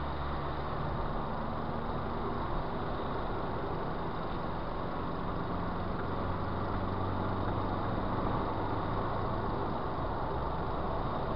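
Steady road and engine noise of a car cruising at motorway speed, heard from inside the cabin: an even rush of tyre and wind noise over a low, constant engine hum.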